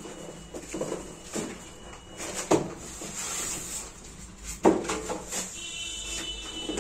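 Large cardboard television carton being opened and handled: cardboard scraping and rustling, with two sharp knocks, one about two and a half seconds in and a louder one a couple of seconds later.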